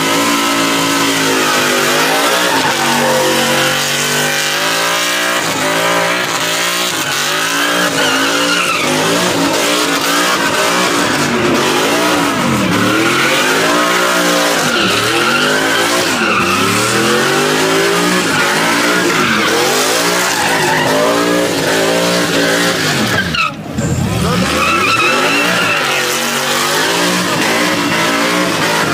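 Pickup truck doing a burnout: the engine revs up and falls back over and over while the spinning rear tires squeal and smoke on the pavement. Near the end the revs drop briefly, then climb again.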